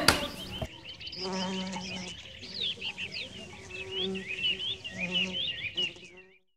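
Small birds chirping and twittering faintly in quick, short rising and falling calls, with a low hum that comes and goes underneath; it all stops about six seconds in.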